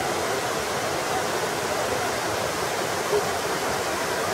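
Torc Waterfall, an 18 m cascade, rushing as a steady, even roar of falling water.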